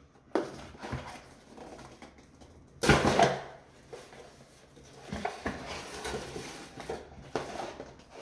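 A gift box being opened and its contents handled: scattered knocks, scrapes and rustling, the loudest a short rasp about three seconds in.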